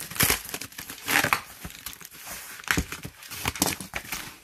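Cardboard rustling, scraping and knocking as a taped shipping box is opened and boxed puzzles are pulled out of it, coming as irregular bursts with several short sharp knocks.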